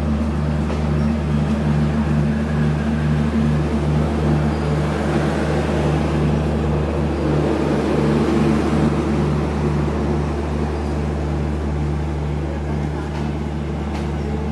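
Bangladesh Railway passenger train (Nilsagar Express) rolling slowly along the track, a steady low diesel drone that pulses about twice a second over a light rumble of wheels on rail.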